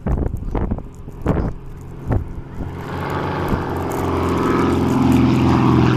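Two light single-engine propeller aircraft approaching and passing overhead, their engine drone swelling from about three seconds in. A few gusts of wind thump the microphone in the first two seconds.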